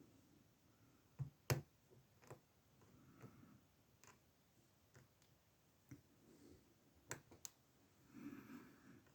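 Faint, irregular clicks of a lock pick and tension wrench working the pins inside a small Cisa 30 mm padlock, the loudest pair about a second and a half in. A soft rustle near the end.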